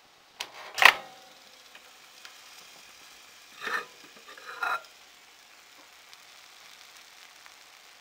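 Panasonic NE-E22A2 microwave door unlatching and swinging open with a sharp clunk about half a second in, the loudest sound. Then a bowl knocks twice against the glass turntable, at about three and a half and four and a half seconds in, as it is lifted out.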